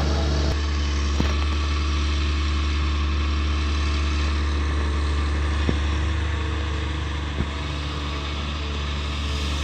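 Long-boom excavator's diesel engine running steadily with a deep, even hum. A few short knocks are heard over it.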